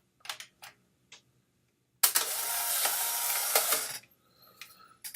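A few light clicks, then a Polaroid One Step instant camera's film-ejection motor running loudly for about two seconds and stopping abruptly, as the camera fires and drives the film pack.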